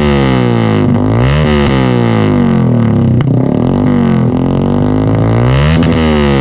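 Yamaha Sniper 150's single-cylinder engine through an aftermarket SC Project exhaust, revved again and again: the pitch climbs quickly and falls back every second or two.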